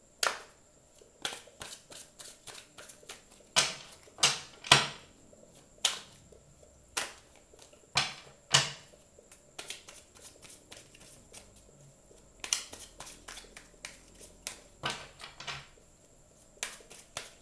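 Spellcaster tarot deck being shuffled by hand: irregular card slaps and clicks, with quick runs of them about two-thirds through and near the end.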